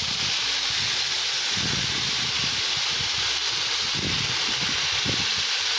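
Water poured from a kettle into a hot kazan of fried buckwheat, hissing and sizzling steadily as it hits the hot metal and turns to steam.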